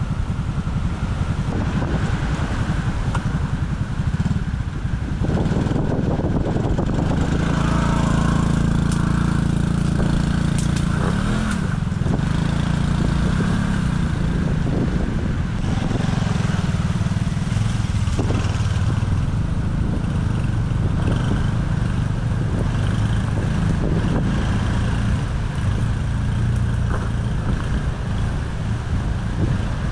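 Motorcycle engine running as the bike sets off, its pitch rising and falling as it accelerates and shifts, coming in about five seconds in over heavy wind noise on the microphone.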